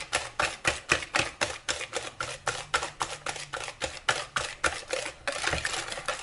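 Hand whisk beating a batter in a bowl, the whisk clicking against the bowl in a quick even rhythm of about five strokes a second. Near the end the clicks blur into a continuous swishing.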